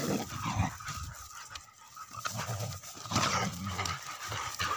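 Several dogs play-fighting, panting, with short dog vocal sounds and scuffling among them.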